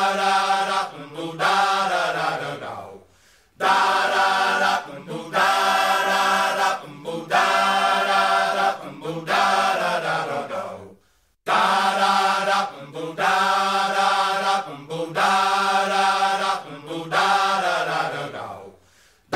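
Background music: several voices singing long held chords in phrases that slide down in pitch at their ends, with a short break about every eight seconds.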